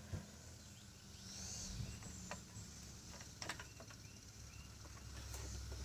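Faint, scattered clicks and light rustling as the plastic air box and its breather hose are fitted back onto a push-mower engine by hand, over a low steady hum.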